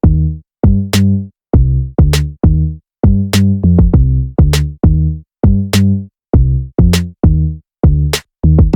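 Background music: an electronic beat of sharp drum-machine hits over short pitched bass notes, in a steady rhythm.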